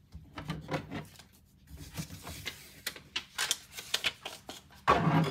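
Plastic PSA graded-card slabs being handled: scattered light clicks and rubbing as cases are shuffled and picked up, with a louder burst near the end.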